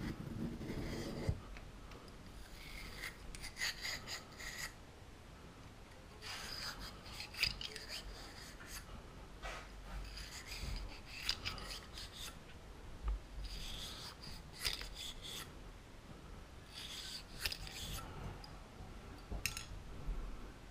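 Brush on a cleaning rod scrubbing back and forth through a pistol barrel: rasping strokes in several bursts with short pauses between them.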